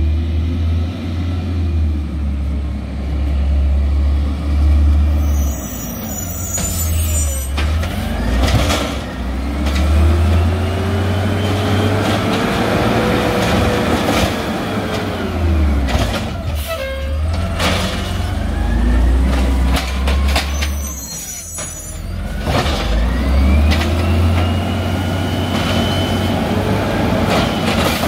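Peterbilt 320 garbage truck's LNG engine running, revving up and down twice as it powers the Amrep automated side-loader arm, with a rising then falling whine each time. Air brakes hiss twice, and there are knocks from the cart being dumped midway.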